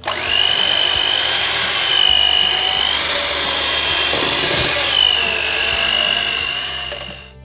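Signora electric hand mixer running with spiral dough hooks, kneading stiff bread dough in a plastic bowl until smooth and elastic. A loud motor whine that starts at once, shifts in pitch a few times, and dies away near the end.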